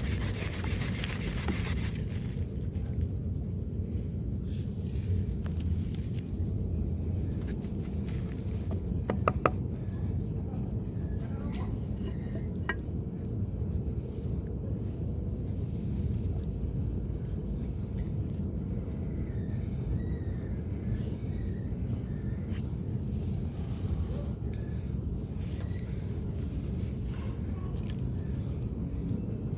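Cricket trilling: a fast, even, high-pitched pulsing that drops out for a few seconds near the middle and resumes. Underneath it runs a low, steady rough noise.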